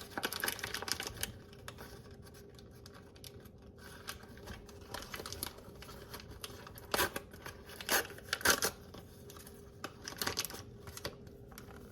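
A paper packet of corn muffin mix being handled, crinkling and tearing in short scratchy bursts, with a few louder rips about seven to nine seconds in.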